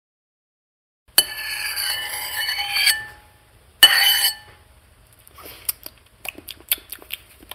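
Spoon and dishes clinking, a sound effect for the soup being tasted: a ringing clatter for about two seconds, a second sharp ring about a second later, then a run of light, irregular clinks.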